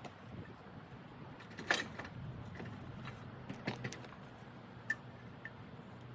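A few sharp metal clinks and knocks, spaced a second or two apart, from a Category 1 quick hitch being worked onto a tractor's three-point hitch lower arm, over a faint low steady hum.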